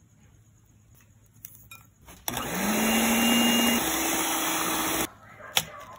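Dowell electric hand mixer whisking shaved ice with milk and sugar in a glass bowl: the motor starts a little over two seconds in, its whine rising as it spins up, steps up in pitch partway through, and cuts off suddenly about five seconds in. A few sharp clicks follow near the end.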